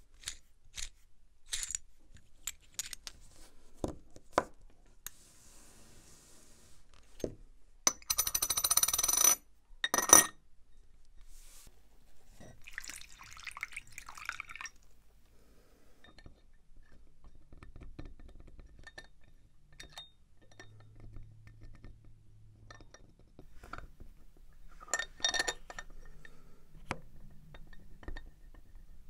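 Small metal watch parts and watchmaker's tools clicking and clinking on a hard surface, with a ringing rattle a third of the way in and another near the end. A short low hum comes a few seconds after the middle.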